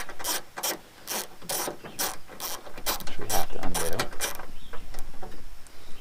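Hand ratchet with a 10 mm socket being swung back and forth to loosen a bolt, its pawl clicking in quick strokes, about two or three a second, until it stops about four seconds in.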